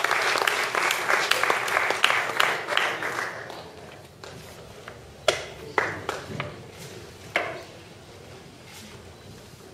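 Audience applauding, with dense clapping that dies away about four seconds in, followed by a few single sharp knocks.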